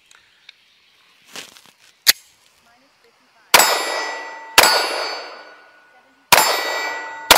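Sig Sauer P320 X-Five 9mm pistol fired four times, each shot followed by a ringing tail. The first two shots come about a second apart and the last two close together after a short pause.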